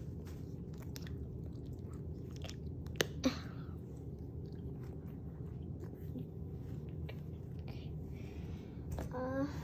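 Small clicks and rustles of a leather planner being handled, with two sharp clicks about three seconds in as its strap's snap tab is pressed shut, over a steady low hum.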